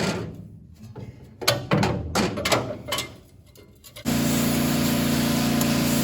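Metal parts clanking and knocking, several sharp knocks with a short ring. About four seconds in a steady engine hum starts abruptly and carries on.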